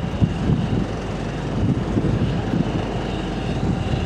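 Wind buffeting the microphone in an uneven low rumble, over a faint steady distant engine hum.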